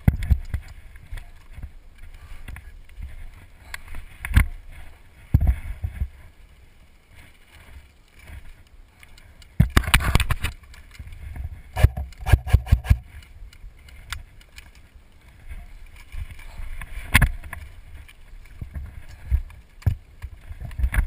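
Airsoft gun fire in short bursts of sharp, rapid clicks, about ten seconds in and again about twelve seconds in, with a single shot near seventeen seconds. Between the bursts, rustling and thumps of movement through grass.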